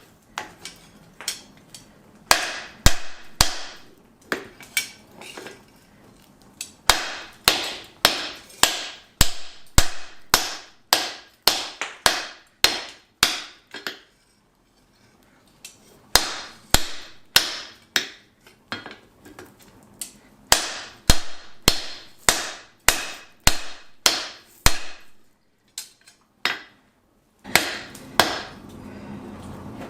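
Hammer blows on hot steel over an anvil, flattening the workpiece to lengthen it, in runs of about two to three ringing strikes a second with short pauses between runs. A steady noise starts near the end.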